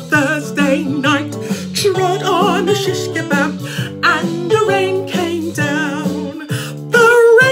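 A woman singing a blues-style singalong with a wide vibrato, over instrumental backing music.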